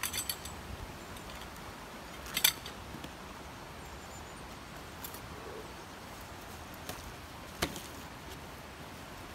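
Camping kit being unpacked and handled: a few sharp clicks and clinks over a faint steady hiss. The loudest come as a quick pair about two and a half seconds in, and a single one comes near the end.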